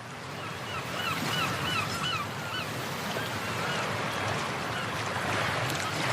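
Birds calling in a quick run of short, repeated calls, about two or three a second, over a steady rushing background noise. The calls stop about two and a half seconds in, and a few return near the end.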